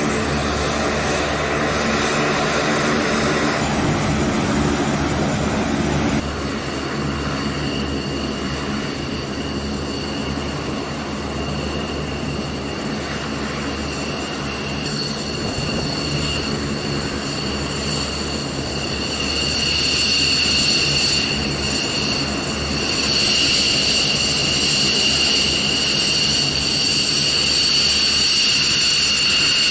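Turboprop engines of a taxiing C-130J Super Hercules running with a pitched propeller drone, which changes abruptly about six seconds in. A high steady jet-engine whine from an F-15C Eagle then builds and is loudest in the last several seconds.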